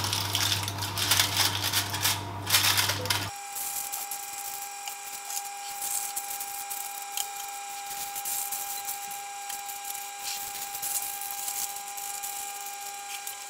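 Aluminium foil crinkling and crackling as it is pressed and folded by hand around ramekins. About three seconds in, the crinkling suddenly drops away, leaving a steady faint high tone with a few soft crinkles.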